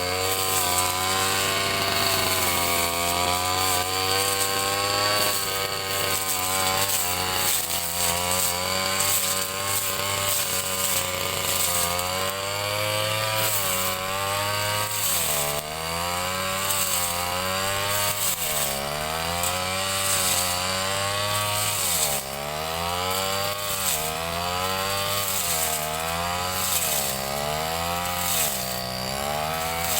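Ryu 30.5 cc two-stroke brush cutter engine running at high revs. Its pitch keeps dipping and recovering as the blade takes load in the grass, and in the second half the dips come about every two seconds.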